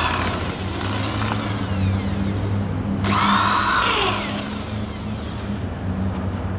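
Electric drill running into the wooden frame in two bursts: one winding down at the very start, and another about three seconds in that rises in pitch and then slows over about a second. A steady low hum runs underneath.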